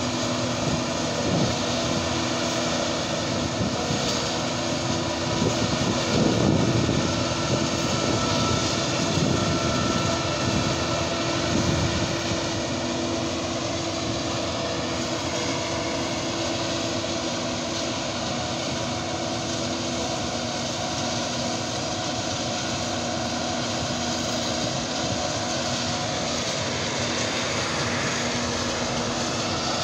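Claas Jaguar self-propelled forage harvester chopping maize, with the tractor and trailer running alongside: a steady engine drone with a constant hum.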